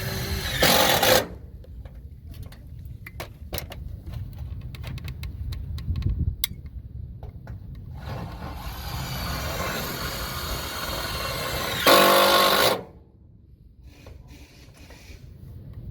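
A power tool run in two short bursts, each under a second, one near the start and one about twelve seconds in, over a steady low rumble.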